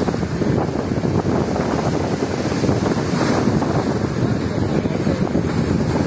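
Strong wind buffeting the microphone with a heavy, fluttering rumble, over sea waves washing and splashing against the concrete tetrapods of a breakwater; the hiss of surf swells about halfway through.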